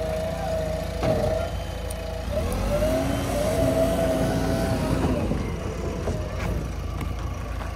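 Diesel engine of a JCB 3DX backhoe loader running under load, with a steady rumble and a wavering whine that rises about two and a half seconds in.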